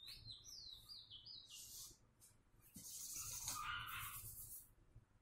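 A bird sings a quick run of about five high whistled notes, each stepping down in pitch. About three seconds in, a marker scratches across the board for about two seconds.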